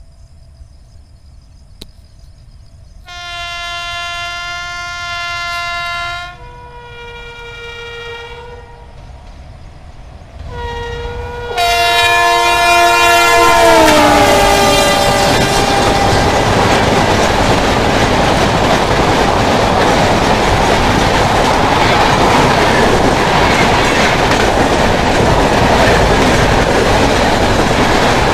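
An Indian Railways electric locomotive sounds its horn three times as it approaches at speed, the last blast dropping in pitch as the engine passes. Then comes the loud, steady rush and rail clatter of the express's coaches going by.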